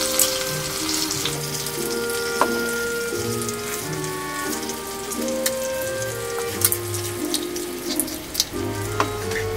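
Meat patties sizzling in butter and olive oil in a frying pan, with scattered crackles as lemon juice is squeezed into the hot fat. Background music with held notes plays over it.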